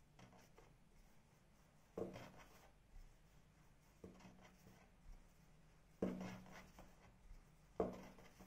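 Wooden rolling pin rolling a disc of filled dough on a wooden board: faint knocks and rubbing strokes about every two seconds.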